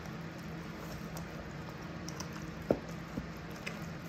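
Custard-soaked bread and apple mixture being stirred in a bowl: soft wet squishing with scattered faint ticks over a low steady hum. One sharp click stands out about two-thirds of the way through, with a smaller one just after.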